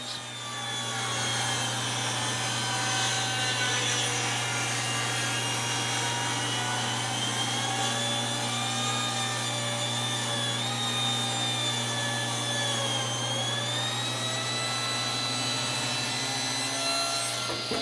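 Table saw ripping a long board of hard maple with a freshly sharpened and cleaned blade. The cut makes a steady noise over the motor's hum, and its pitch dips briefly about two-thirds of the way through. Just before the end the cut finishes and the blade runs on free.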